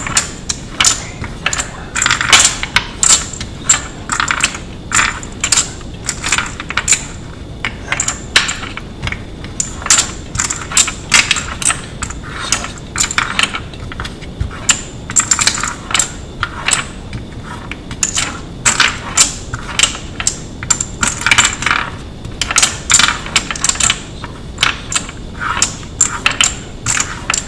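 Loose brass rifle cartridges clinking as they are picked out of a wooden tray and set in a row in a wooden magazine speed loader: quick, irregular metallic clinks and clicks, several a second.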